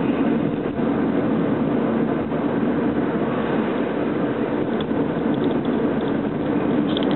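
Steady road and engine noise inside a moving car's cabin, with a few faint ticks or rattles.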